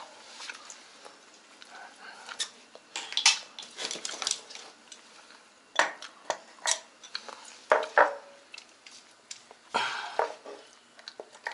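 Irregular metallic clinks and clatter of tools and small metal parts being handled while a washing machine is taken apart, with a few sharper knocks scattered through.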